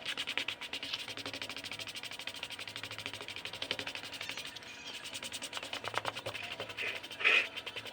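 Sandpaper being worked over the flesh side of a beaver hide to soften it: a fast, even run of rasping strokes, with one louder scrape near the end.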